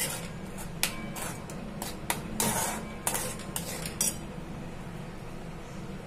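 A steel spoon scraping and clinking against a metal kadai as thick tomato sauce is stirred, in quick irregular strokes that stop about four seconds in. A steady low hum runs underneath.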